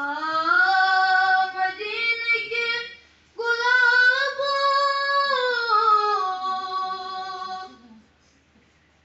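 A boy's voice singing a naat, a devotional Urdu poem, with no instruments: two long, melismatic held phrases with a short breath about three seconds in.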